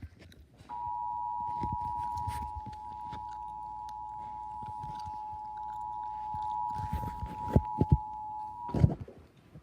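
Emergency Alert System attention signal: two steady tones sounding together for about eight seconds, starting about a second in and cutting off near the end. It is the alarm that heralds a severe thunderstorm warning. Sharp clicks and thumps come over it, the loudest near the end.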